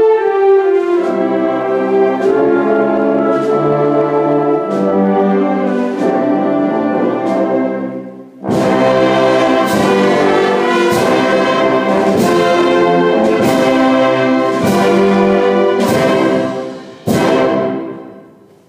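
Wind band of woodwinds, brass and percussion playing a slow march. After a dip about eight seconds in, the full band comes back loud with steady drum strokes a little over once a second, then strikes a final chord near the end that dies away.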